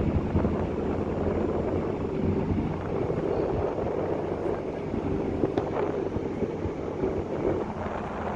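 Car ferry under way: a steady low drone from its engines under an even rushing noise.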